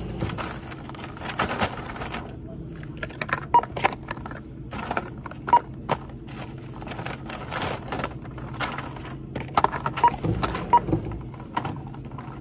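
Checkout barcode scanner giving several short single beeps as items are passed over it. Between the beeps come rustles, knocks and clatter of goods being handled and dropped into bags.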